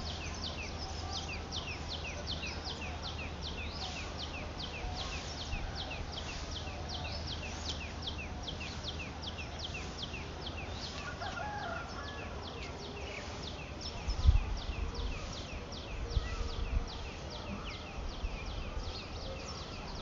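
Country chicken chicks peeping continuously: high, quick, falling peeps, about four or five a second. A couple of low thuds come about two-thirds of the way through.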